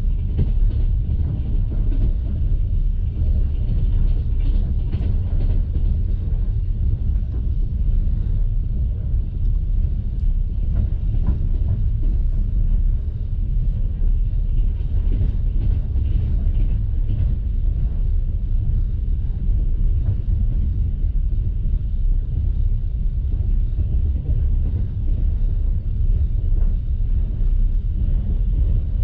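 Steady low rumble of a passenger railway carriage running at speed, heard from inside the compartment: wheels on the rails and the coach body, with no break or change.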